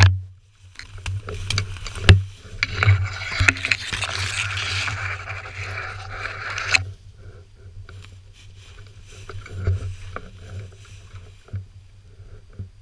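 Tall dry grass and brush swishing and scraping against the camera as someone pushes through thick cover, with a few sharp knocks. The rustling is heaviest from about two to seven seconds in, then turns lighter and patchier.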